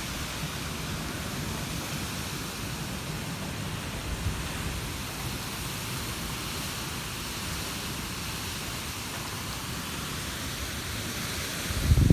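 Wind blowing steadily, a continuous rushing hiss over an uneven low rumble, with a stronger low gust building near the end.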